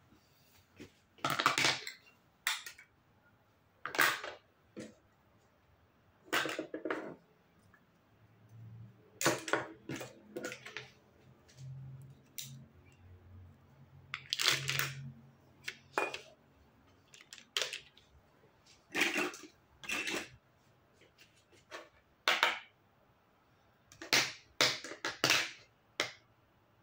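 Hard plastic toy kitchen pieces (play food, plates, spoons and a toy knife) being picked up and set down on a tabletop, giving a dozen or more separate clacks and light clatters every second or two, with a quick run of them near the end.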